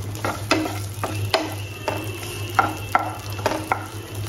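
Wooden spatula stirring chopped onion and garlic cloves in oil in a nonstick frying pan: about eight irregular scrapes and knocks against the pan over the sizzle of the frying oil.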